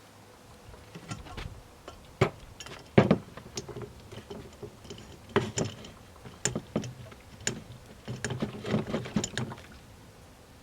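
Irregular metal clanks and clicks from a chainsaw bar being fitted into a Granberg edging mill and set at an angle, the loudest knocks about two and three seconds in.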